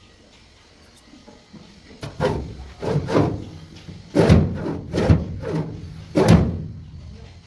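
Drawer of a steel cupboard pulled open and pushed shut several times, starting about two seconds in: a series of sliding scrapes, each ending in a knock as the drawer reaches its stop.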